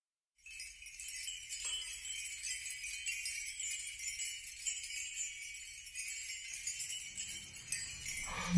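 Faint, high jingling like small bells, the thin opening of a background music track. Lower sound swells in near the end.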